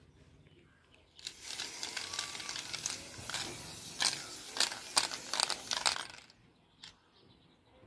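Aerosol spray-paint can spraying: a hiss that starts about a second in, runs about five seconds with sharper spurts in its second half, and stops.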